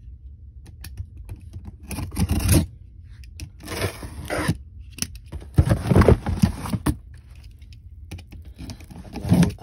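A utility knife scraping and slicing along the packing tape on a cardboard shipping box, with the tape tearing, in about four loud strokes.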